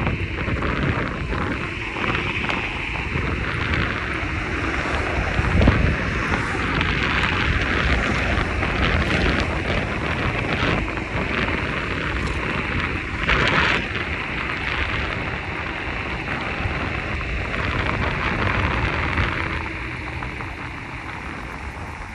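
Wind rumbling on the microphone over a steady rush of vehicle or street noise, with a couple of louder thumps.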